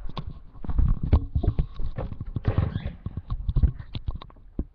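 Rapid, irregular knocking and rattling of the plastic parts of an Electrolux Ergorapido hand vac as they are handled, with heavy thuds and clatter that ease off toward the end.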